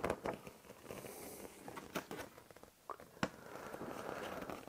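Hands handling a model-railway kit's packaging and paper instruction sheet: soft paper rustling with scattered light clicks and a few sharper ticks.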